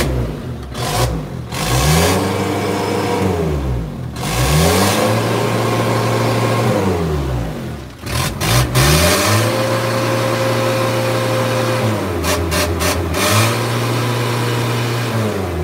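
Isuzu 4JG2 four-cylinder diesel engine revved four times, each rev climbing, held for a few seconds, then dropping back. The engine runs smoothly.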